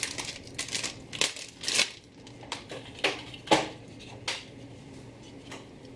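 Plastic crinkling and clicking as small parts are handled on the bench: a run of sharp clicks and crinkles that thins out after about four and a half seconds.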